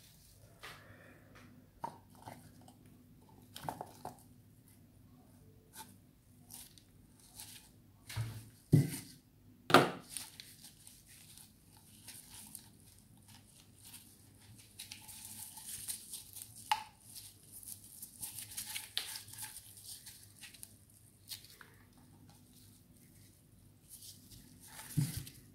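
Coconut meat being pried and scraped out of the hard shell with a knife: scattered clicks and scrapes, two loud knocks about a third of the way in, and a longer run of scraping in the second half.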